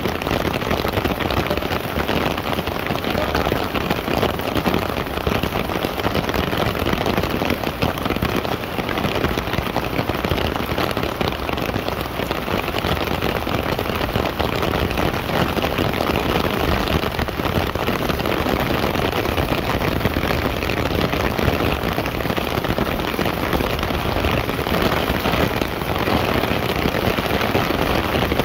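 Heavy rain falling on a clear plastic umbrella overhead and splashing on wet asphalt: a steady, dense hiss that does not let up.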